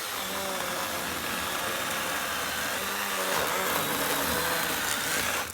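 Milwaukee M12 Fuel battery chainsaw with a 6-inch bar running steadily under load, its chain cutting through wood on a felling back cut. It stops suddenly at the end.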